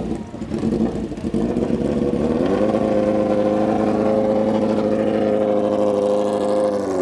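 Suzuki GSX-R motorcycle engine revving: a rough, uneven note for about two seconds, then a rise in pitch to a steady high rev that is held for several seconds, dropping briefly near the end.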